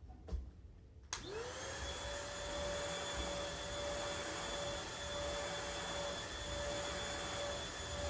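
Small stick vacuum cleaner switched on: two clicks, the second about a second in, then its motor spins up quickly to a steady pitch with a high whine and keeps running.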